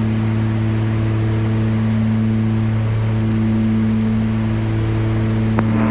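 Steady drone of a Piper Aerostar 700's twin piston engines and propellers in cruise, heard inside the cockpit as a constant low hum. A faint high whine stops with a sharp click near the end.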